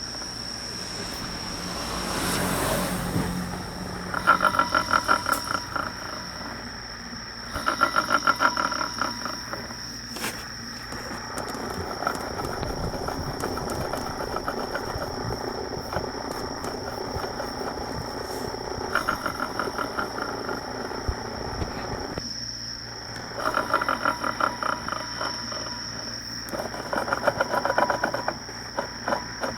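Clutch primary sheave of a Suzuki Skywave 250 (CJ45A) scooter turned by hand, its needle bearing giving a rapid clicking rattle in about five bursts of a second or two. The mechanic takes this worn needle bearing to be the cause of the abnormal noise from the drive.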